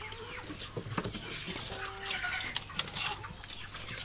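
Chickens clucking, with several sharp clicks mixed in.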